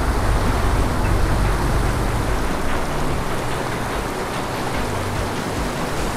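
Steady rush of a river running fast over rocks and through rapids.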